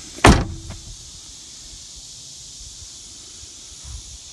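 A car door on a 1988 Chrysler Fifth Avenue slammed shut once, a single loud thud about a quarter second in, with a short ring after it. A steady high hiss of insects runs underneath.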